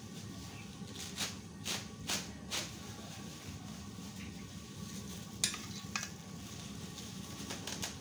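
Large aluminium stockpot of lungs boiling, a steady bubbling hiss with a handful of short sharp pops, the loudest about five and a half seconds in.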